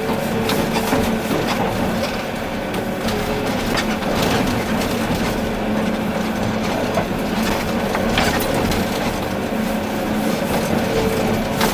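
Volvo EC380D excavator working: a steady diesel engine and hydraulic drone with scattered clanks and knocks throughout.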